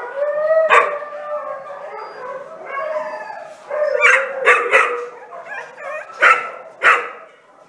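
Kennelled shelter dogs howling and whining in long drawn-out calls, broken by sharp barks: one about a second in, then several more in quick succession in the second half.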